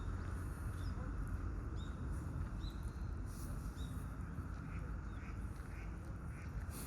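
Steady low outdoor rumble with a few short, high bird chirps about two to four seconds in, then a run of short, evenly repeated bird calls near the end.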